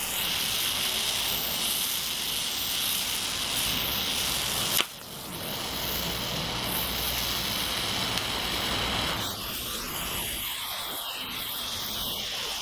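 Gas flame hissing steadily while a blade is heat-treated, with a single sharp click about five seconds in.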